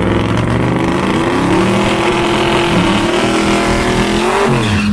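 Two drag cars doing side-by-side burnouts, the twin-turbo Buick Skylark and a red car, engines held at high revs with the rear tyres spinning. Near the end one engine comes off the throttle and its pitch falls, while the other holds steady.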